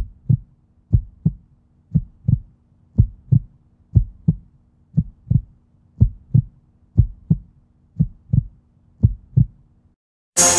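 Heartbeat sound effect: pairs of low thumps, lub-dub, about one pair a second, ten pairs in all. It stops shortly before the end, and hip-hop music comes in loud near the end.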